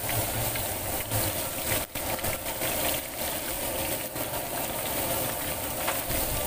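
Batter-coated fish and shrimp deep-frying in a wide wok of hot oil: a steady sizzling and bubbling.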